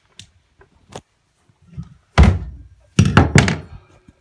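Three heavy thunks on a bathtub: one about two seconds in, then two more close together about a second later, with a few faint clicks before them. They come from a metal drain extractor tool and pliers being handled and knocked against the tub while the drain is reinstalled.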